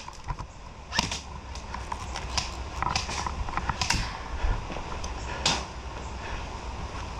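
Airsoft guns firing around the field: scattered single sharp snaps at irregular intervals, over a low steady rumble of wind on the microphone.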